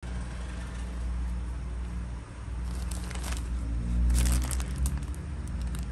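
Plastic courier mailer bag crinkling as it is handled, in two bursts about three and four seconds in, with a few small crackles near the end. A steady low hum runs underneath.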